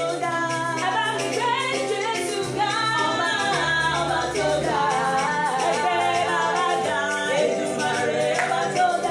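Gospel praise singing, voices moving over sustained accompanying chords.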